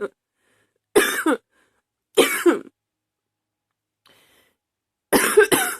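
A woman coughing in a fit she can't stop: a cough about a second in, another a second later, then two quick coughs close together near the end.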